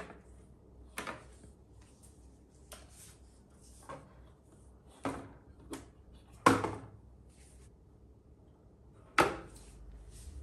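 Irregular clicks and knocks of small hard objects being handled, about eight over ten seconds, with two sharper knocks about six and a half and nine seconds in.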